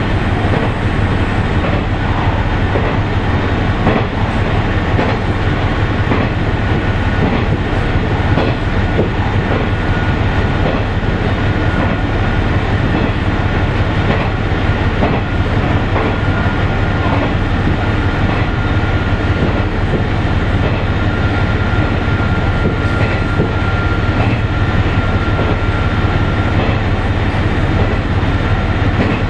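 Ibara Railway diesel railcar heard from inside while running at speed: a steady low engine and rolling drone with the irregular clatter of the wheels over the track. A thin high whine rises out of it for several seconds in the middle.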